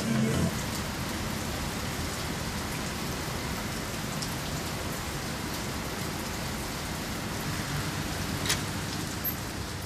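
Heavy rain falling steadily, an even hiss of drops, with one sharp tap about eight and a half seconds in.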